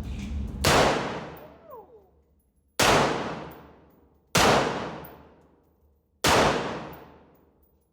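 Four gunshots fired one at a time, spaced roughly one and a half to two seconds apart, each ringing out in a long echo off the walls of an indoor range.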